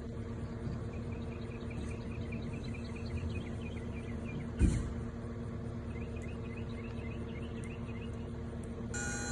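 Outdoor ambience: a steady low hum under two runs of quick, repeated high chirping, with a single sharp thump about four and a half seconds in.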